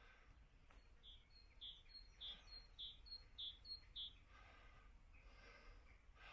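A songbird, faint, singing about seven quick two-note phrases, each high then slightly lower. It stops about four seconds in, leaving quiet countryside background.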